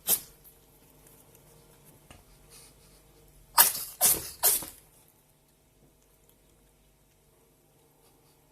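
Pet ferret sneezing: one sharp sneeze right at the start, then three more in quick succession about three and a half seconds in.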